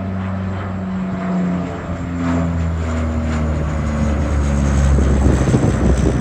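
Twin-turboprop De Havilland Canada Dash 8-300 departing, its Pratt & Whitney PW123 engines and propellers droning with steady low propeller tones. The sound grows louder and turns into a rougher rush near the end as the aircraft passes at takeoff power.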